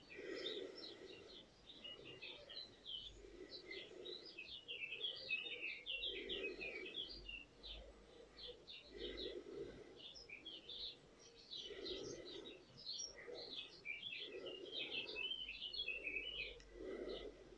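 Faint birdsong: many quick, high chirps from several small birds, running on without pause. A lower sound recurs about every two to three seconds underneath.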